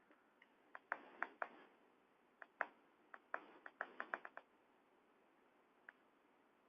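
Faint, sharp clicks and taps over near silence: an irregular run of about fifteen between one and four and a half seconds in, then a single click near the end.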